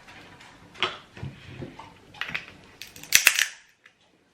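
Walnut shell being cracked open: a few small clicks, then a cluster of loud, sharp cracks about three seconds in as the shell gives way.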